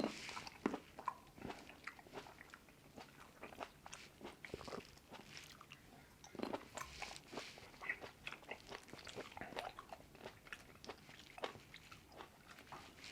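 Close-miked eating of Shine Muscat grapes: biting into the firm, thin-skinned fruit and chewing with a run of crisp crunches and wet clicking mouth sounds.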